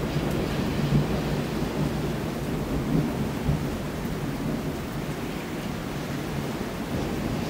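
Thunder rumbling over steady rain, swelling louder about a second in and again about three seconds in.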